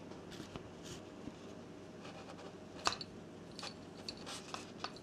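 A brushless outrunner motor from an RC model bomber turned slowly by hand, giving faint scraping and irregular clicks, the sharpest about three seconds in. It is metal rubbing against metal, the sign of a faulty motor that sometimes clunks and sticks, which the owner suspects has a loose magnet.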